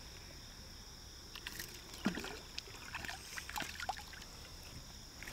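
Small splashes and clicks beside a kayak as a hooked fish is reeled to the hull and grabbed by hand. The splashing comes in short bits from about a second and a half in, stopping near four seconds.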